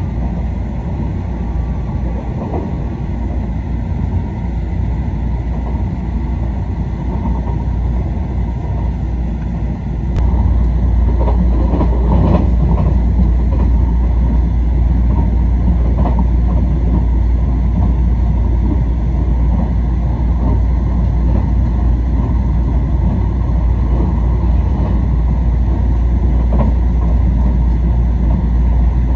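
Running noise of a passenger train heard from inside the carriage: a steady low rumble with occasional wheel clacks over the rails, getting louder about ten seconds in.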